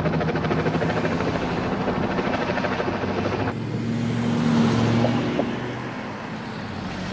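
Helicopter flying overhead with a steady, rapid rotor beat. The sound changes abruptly about three and a half seconds in, then carries on a little quieter.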